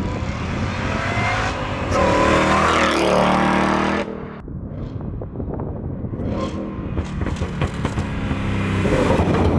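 Supercharged Ford Mustang GT V8 running through a new Magnaflow X-mod catback exhaust. It revs up hard and loud, rising in pitch, then drops off abruptly about four seconds in, and builds again near the end.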